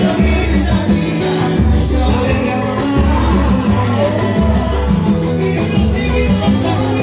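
Live pagode music: a cavaquinho strummed over acoustic guitar, long bass notes and a steady percussion beat, with a man singing.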